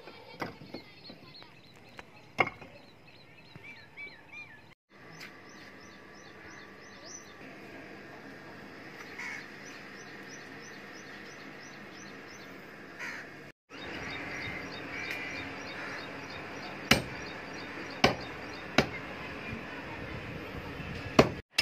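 Crows cawing and small birds chirping, with several sharp knocks of a hatchet chopping goat meat and bone, most of them in the last few seconds.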